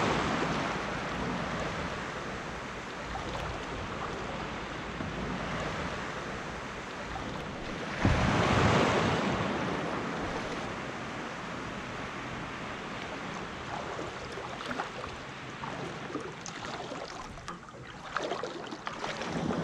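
Wind buffeting the microphone over small waves lapping in shallow water, with a strong gust about eight seconds in. Near the end, light splashing from wading in the shallows.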